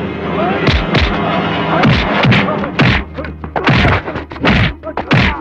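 Film fight sound effects: a rapid run of a dozen or so punch and blow hits with swishes, over a background music score.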